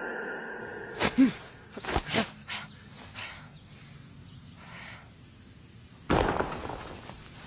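A few sharp thumps and knocks in the first couple of seconds over faint background noise, then a louder noisy burst about six seconds in.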